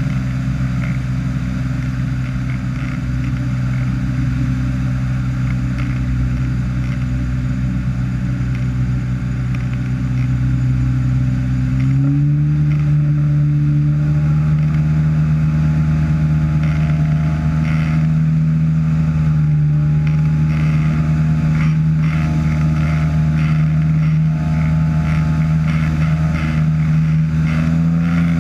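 Ultralight trike's engine and propeller droning steadily in flight. About twelve seconds in, the engine speed steps up, raising the pitch, and the drone gets a little louder.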